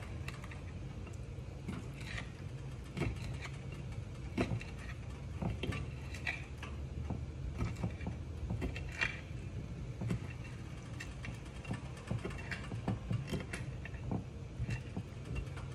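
Knife cutting raw shrimp into bite-sized pieces on a cutting board: irregular sharp taps and knocks of the blade and board, over a steady low hum.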